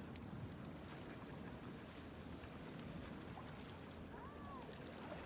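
Steady wash of water lapping against a rocky shoreline and around a swamped wooden canoe, with faint high chirping early on and a short faint whistle about four seconds in.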